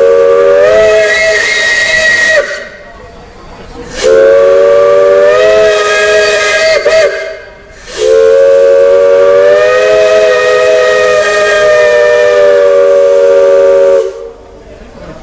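Steam locomotive chime whistle blown in three blasts, two shorter ones and then a long one of about six seconds. Several notes sound together as a chord, and each blast bends slightly up in pitch as it opens.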